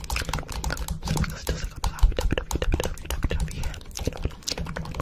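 A dense, irregular clatter of quick clicks, like keys being typed fast, over a steady low hum.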